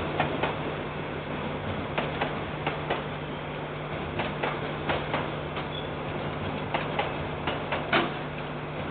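KiwiRail freight wagons rolling past, their wheels clacking over rail joints in pairs every second or two, the loudest pair near the end. A steady electrical hum and hiss run underneath.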